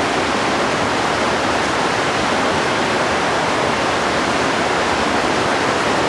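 Steady, loud hiss of heavy rain.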